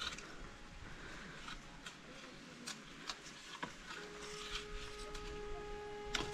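Faint scattered clicks and taps of a long wooden pole being worked against a papaya tree's fruit cluster. A faint steady tone with overtones joins about four seconds in.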